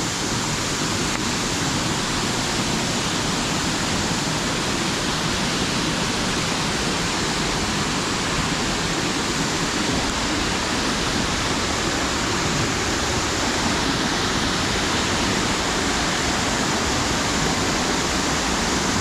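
Waterfall rushing: a steady, loud roar of falling water, even throughout.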